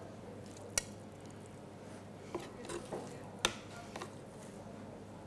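Metal pasta server clinking against the frying pan and a ceramic plate while tagliolini are lifted and plated: two sharp clicks, one about a second in and one about two-thirds through, with softer knocks between.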